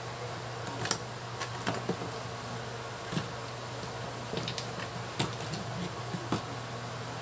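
Light irregular clicks and taps from an ECU circuit board and its plastic connector housing being handled and turned over on a workbench, over a steady low hum.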